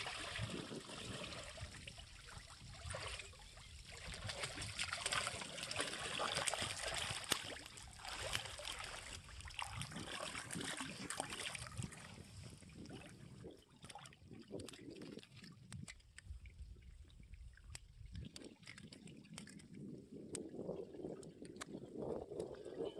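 Shallow water splashing and sloshing as a hooked baam eel thrashes at the surface and a man wades while reeling it in, busiest in the first half, then quieter with scattered small splashes.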